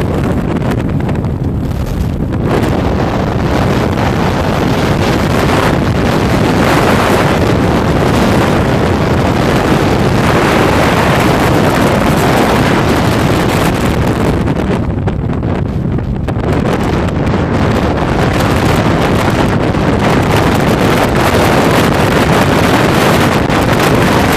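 Strong gusting wind buffeting the microphone: a loud, steady rushing noise that eases briefly twice, about two seconds in and again around fifteen seconds in.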